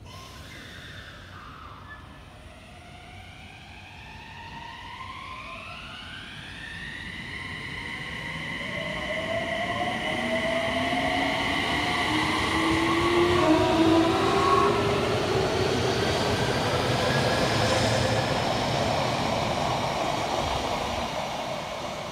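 Odakyu 3000-series six-car electric train pulling away, its traction motors whining in several tones that climb in pitch in stages as it gathers speed. Wheel and rail noise builds up and is loudest about two-thirds of the way through, then eases as the train moves off.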